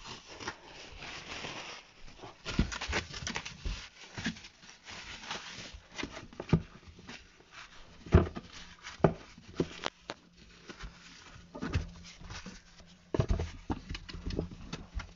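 Scattered knocks, taps and rubbing from a plastic reptile tub being handled and wiped down with paper towel.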